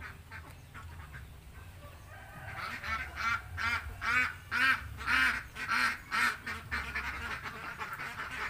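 A flock of domestic laying ducks quacking. Starting a few seconds in, one loud quack follows another at about two a second for several seconds, then the calling drops back to scattered, quieter quacks.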